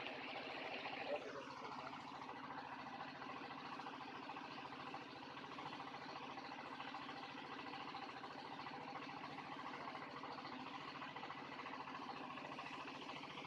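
A small engine running steadily, with a short knock about a second in.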